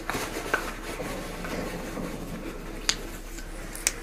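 Footsteps scuffing along a tunnel floor with rubbing and rustling, and two sharp clicks near the end.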